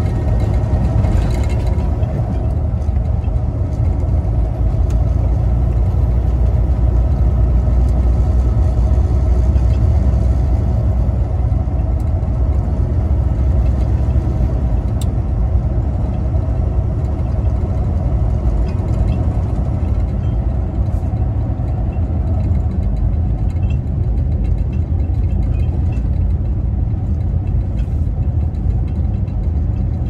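Semi truck's diesel engine and tyre noise heard from inside the cab, a steady low drone while cruising on a snow-covered highway.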